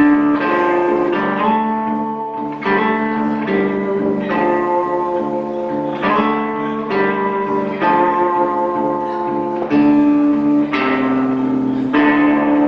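Guitar playing the instrumental intro of a song, with chords struck and left ringing about once a second and the harmony changing every few strokes.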